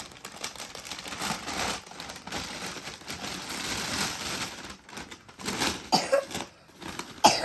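Paper or packaging rustling and crinkling in hands as a gift is unwrapped, with a few sharp rustles near the end.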